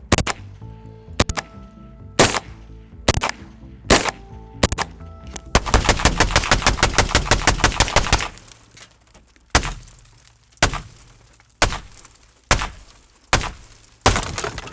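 5.56 rifle rounds striking a car windshield, heard from inside the car: sharp cracks about once a second. In the middle comes a fast string of shots lasting about two seconds, then single cracks again.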